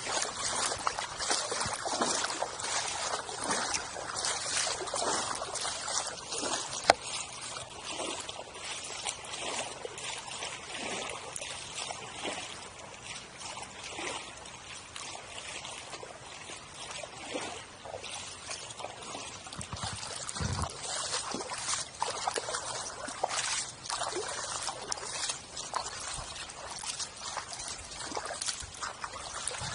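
Footsteps wading through ankle-deep floodwater in flip-flops, a splash with each step at a steady walking pace. One sharp tap stands out about a quarter of the way through.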